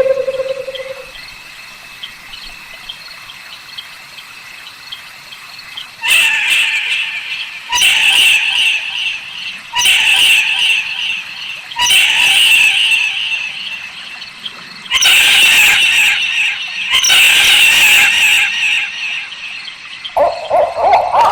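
Barn owl giving a series of six harsh, hissing screeches about two seconds apart, each lasting a second or two. A low owl hoot fades out at the start, and another hooting call begins near the end.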